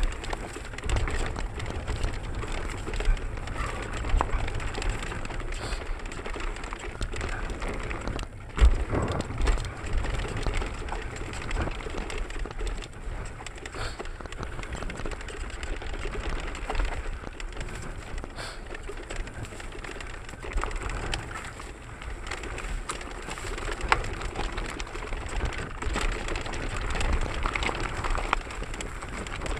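Mountain bike descending a rough dirt singletrack at speed: tyres on dirt and the bike rattling over bumps, with wind rushing over the camera microphone. Frequent knocks as it hits roots and ruts, a loud one about eight seconds in and another near twenty-four seconds.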